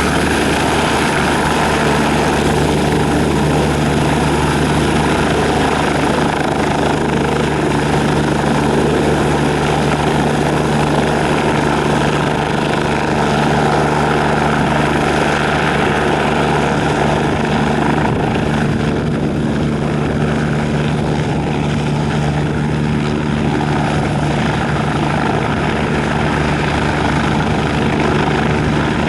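Eurocopter-Kawasaki EC-145 (BK-117C-2) twin-turbine helicopter running steadily, its engines and rotors at a constant, loud level with no change in pitch.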